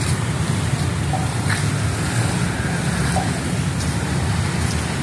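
Heavy rain falling steadily, an even hiss with a low rumble beneath it and a few sharper drop ticks scattered through.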